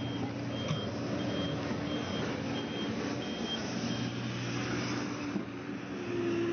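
A heavy vehicle's reversing alarm beeping about one and a half times a second over the steady running of its diesel engine. The beeping stops about four seconds in, and the engine keeps running.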